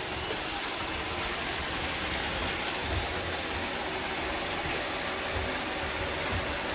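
Several robot vacuums running together, giving a steady whirring hiss of suction motors and spinning brushes as they sweep over scattered plastic confetti.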